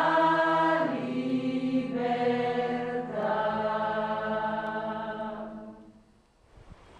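Slow chant-like music: long held notes that change about once a second over a steady low drone, fading out near the end.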